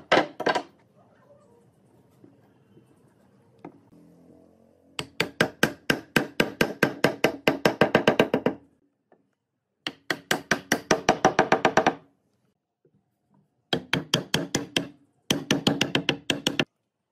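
Rapid runs of sharp knocks on wood, about nine a second, in four bursts of one to four seconds with short gaps between, and a couple of louder knocks right at the start.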